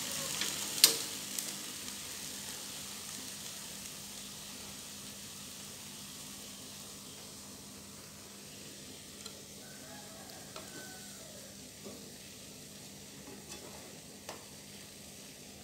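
Eggplant in chilli paste sizzling in a non-stick wok as the last of its cooking water dries off, the hiss fading steadily. A sharp clack of the spatula against the pan about a second in, then a few light taps as pieces are scooped out.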